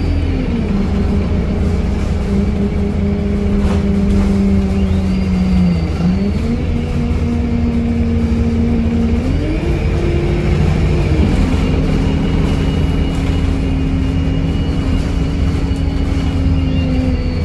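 Inside an ADL Enviro 200 MMC bus under way: the Cummins ISBe 4.5-litre diesel's drone over heavy road rumble, its note dropping about half a second in, dipping and climbing again around six seconds, and rising for a while around ten seconds before falling back, in step with the Voith DIWA automatic gearbox's shifts. A high whine rises and falls around five seconds and again near the end.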